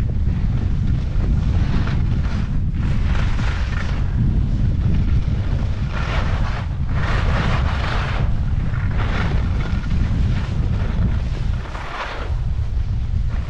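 Wind on the microphone in a steady low rumble, with the hiss and scrape of skis on snow surging every second or two as the skier turns.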